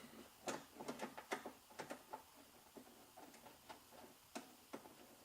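Faint, irregular clicks and taps of small metal hardware being worked by hand inside a car door while a door-handle bolt is started on its threads, with a quick run of clicks in the first two seconds and scattered ones after.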